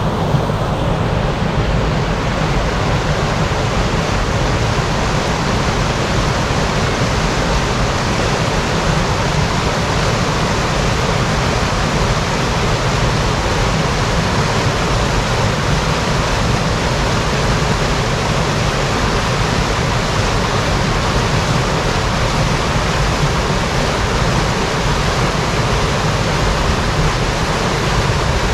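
Waterfall pouring steadily: a loud, even rush of falling water with no breaks.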